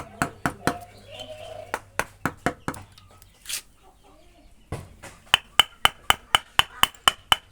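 Hand tool striking wood during carving: sharp knocks, irregular at first, then after a pause a quick even run of about four to five a second, each strike with a short ringing note.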